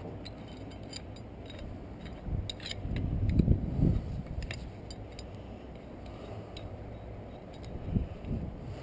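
Metal parts of a gas water heater being handled and worked loose: scattered small metallic clicks, clinks and scrapes, with a louder low rumbling, knocking stretch about three to four seconds in.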